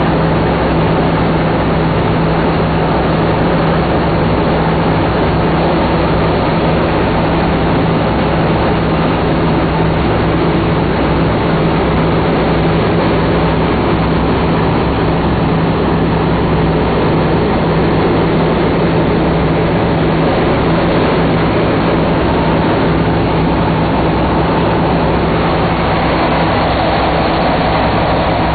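B-17 Flying Fortress's four Wright Cyclone radial engines droning steadily in cruising flight, with loud rushing wind and airframe noise, heard from inside the bomber.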